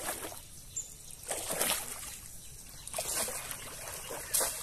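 Pond water splashing and sloshing in several irregular bursts, the strongest a little over a second in.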